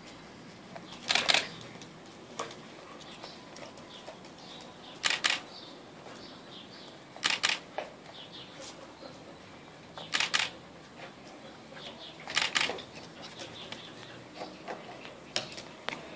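Puppies playing and eating on a tiled floor: five short clattering bursts a few seconds apart, with light scuffling and ticking in between.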